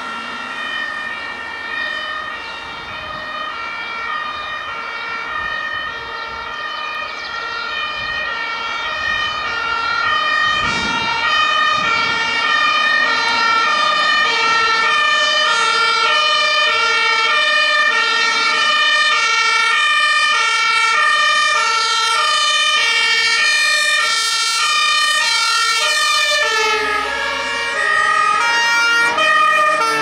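German two-tone emergency sirens (Martinshorn) of an approaching ambulance and fire engines, alternating steadily between a high and a low tone, with several horns overlapping and growing louder as the convoy nears. Near the end the tone pattern shifts lower as the vehicles come close.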